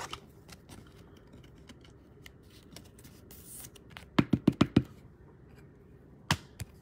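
Hands handling a trading card in a hard plastic holder: a short sliding scrape, then a quick run of five sharp taps about four seconds in, and one more tap near the end.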